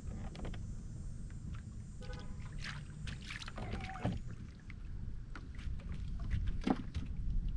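Small waves slapping against a fishing boat's hull, over a low steady rumble, with scattered small clicks and knocks from gear on the deck.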